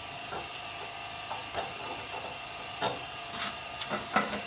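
Several light, irregular clicks and taps of bread dough being cut into segments and shaped, over a steady background hum.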